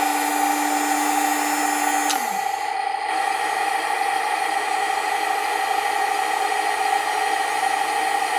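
Simulated engine idle from a Heng Long Tiger I RC tank's sound module, running steadily. For about the first two seconds the small electric gun-elevation motor whirs at a steady pitch as the barrel lifts, then winds down and stops.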